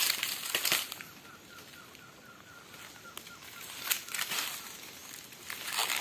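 Footsteps crunching on a deep layer of dry bamboo leaves, in irregular steps that are loudest at the start and again about four seconds in and near the end. A faint, quick run of short high chirps sounds from about one to three seconds in.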